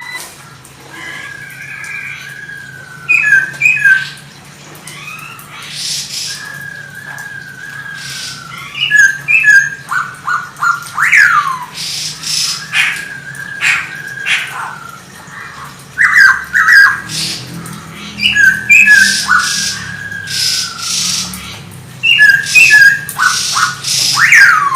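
A Poksay Hongkong (black-throated laughingthrush) singing loud, varied phrases of clear whistled notes, with falling glides and quick upward sweeps, broken by harsh raspy calls.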